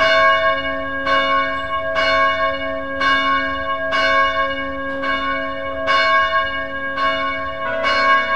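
A bell tolling, struck about once a second, each stroke ringing on into the next.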